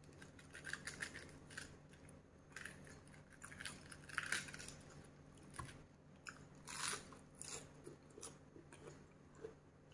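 A person chewing food close to a clip-on microphone, with small wet clicks and crunches, and crisp crackles of a raw cabbage leaf being torn by hand about four seconds in.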